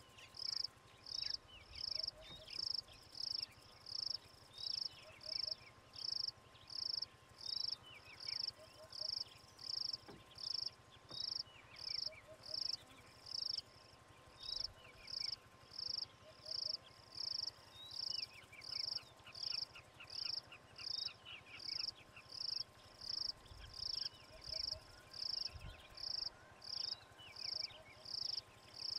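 An insect chirping in a steady, even rhythm, about one and a half high chirps a second, with birds calling in short, falling notes behind it.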